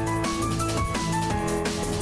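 Electronic background music with a steady drum beat and a bright synth melody.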